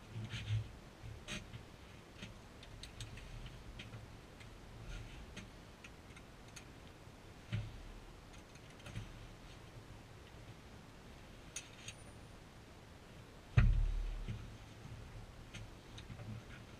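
Seat-harness webbing and metal buckle fittings being handled and adjusted: scattered light clicks and rustles, with one heavy thump about fourteen seconds in.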